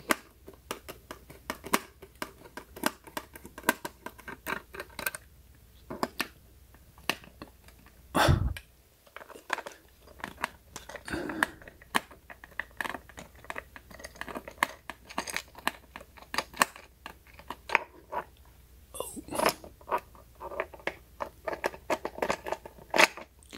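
Small screwdriver working screws out of a plastic solar-panel mount, with many small irregular clicks and scrapes of the screwdriver and plastic parts being handled. One louder knock comes about eight seconds in.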